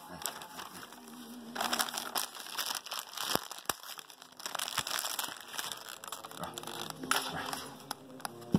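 Shiny foil Christmas wrapping paper being crumpled and crinkled by hand, with sharp crackles throughout.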